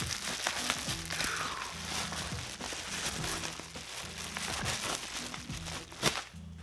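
Plastic bubble-wrap bag crinkling and crackling as it is handled and opened to take out a fishing reel, with one sharp louder crackle about six seconds in.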